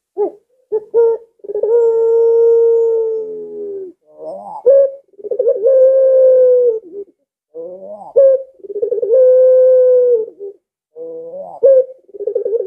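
Barbary dove (puter pelung) cooing: about four repeated phrases, each opening with a few short rising notes and ending in a long drawn-out coo held steady for one to two seconds, the last one still going at the end.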